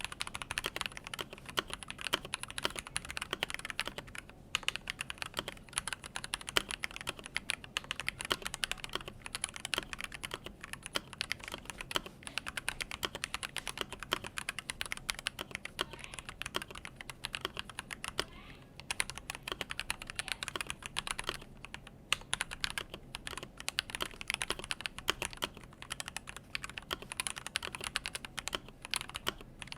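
Typing on a KBD67 MkII mechanical keyboard with a polycarbonate case, brass weight, brass plate, unlubed JWK Durock Lavender linear switches, Durock V2 stabilizers and Akko keycaps. It is a steady, uneven run of key clacks, broken by a few brief pauses.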